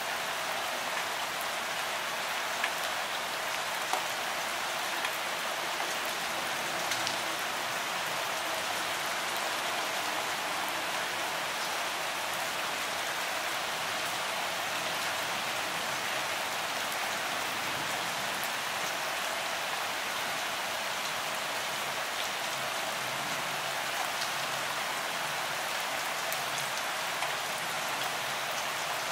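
Steady rain falling, a bright, even hiss with little low rumble, with a few sharper drop ticks now and then.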